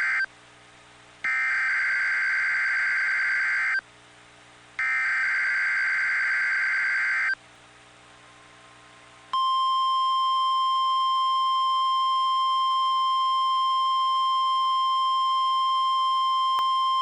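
NOAA Weather Radio SAME header data bursts: the end of one screeching digital burst, then two more, each about two and a half seconds with a short gap. About nine seconds in, the steady 1050 Hz weather radio warning alarm tone starts and holds. Together they make the test signal of the Required Weekly Test.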